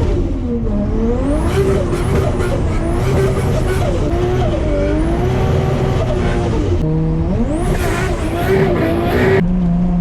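Nissan Skyline R33's modified RB25DET turbocharged straight-six revving hard and shifting, its note climbing and dropping repeatedly, with a rising turbo whistle and choppy turbo flutter when the throttle is lifted. Near the end it settles to a steady lower note.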